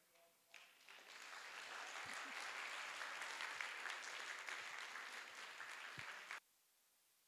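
Audience applauding: the clapping starts about half a second in, builds quickly to full strength, and cuts off suddenly about six seconds in.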